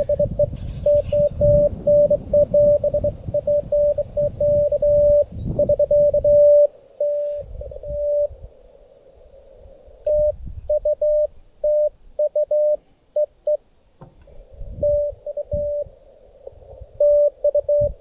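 Morse code (CW) from a Xiegu G90 ham radio transceiver: a steady tone of about 600 Hz keyed in dots and dashes, with a couple of pauses between overs. A low rumble sits under the first six seconds.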